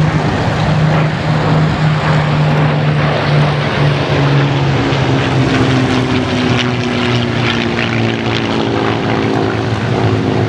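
Piston engines of World War II propeller aircraft running loud and steady, the engine note sinking slightly in pitch partway through.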